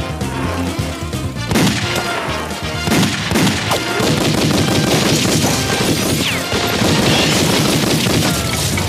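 Cartoon gunfire from a long gun: two single shots, then a rapid volley of shots that runs on for several seconds, over background music.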